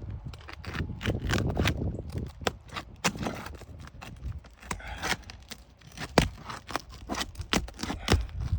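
Irregular sharp clicks, knocks and scrapes of tools and hands working on an asphalt shingle roof as shingles are pried and pulled up, over a low rumble.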